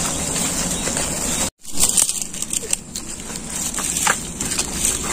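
Small kindling fire of dry bamboo sticks and leaves being lit, with faint crackling and rustling over a steady high hiss. The sound drops out completely for a moment about a second and a half in.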